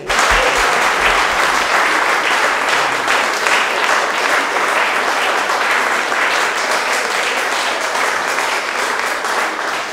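Audience applauding: dense clapping that starts suddenly, holds steady, and begins to die away near the end.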